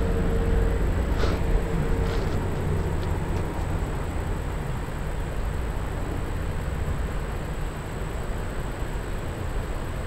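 Steady low rumble of fast-flowing river water, with a few faint clicks in the first three seconds.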